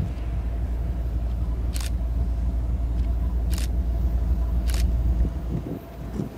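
Low, steady rumble of Union Pacific diesel locomotives approaching at the head of an intermodal train, with three short sharp clicks about two, three and a half, and nearly five seconds in.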